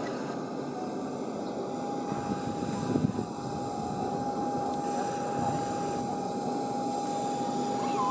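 Steady cabin noise of an airliner in flight: an even rush of engine and airflow with a constant hum running through it.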